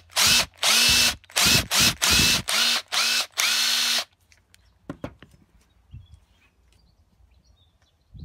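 Milwaukee M18 cordless tool's motor run in about eight short trigger pulls over the first four seconds, each spinning up quickly and stopping, powered by the repaired M18 battery pack. After that it goes much quieter, with a few faint clicks.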